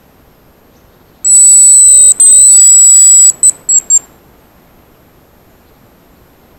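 Hazel grouse decoy whistle blown close by: two long, thin, very loud high whistles followed by three short notes, imitating the hazel grouse's song to call a bird in.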